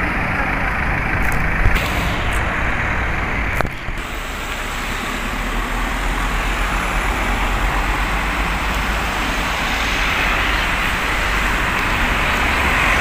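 Steady road traffic noise: engines and tyres of passing vehicles. It dips briefly about three and a half seconds in, then slowly grows louder.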